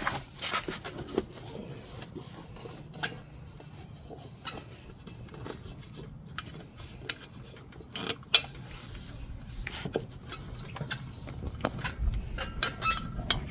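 Scattered metallic clinks, knocks and scraping as a heavy e-bike wheel rim is handled and worked back into place on the frame.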